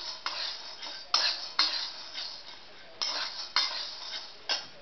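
Metal spatula scraping and stirring dry split dal in a metal kadhai: a run of sharp scrapes with the grains rattling against the pan. The dal is dry-roasted to done.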